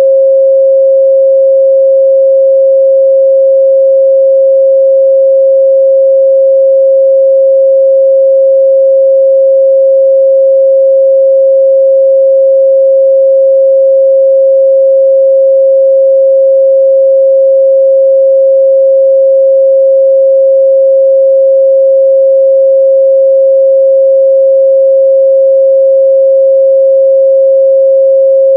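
Steady 538 Hz sine-wave test tone: one pure, constant mid-range pitch, unbroken and unchanging in level.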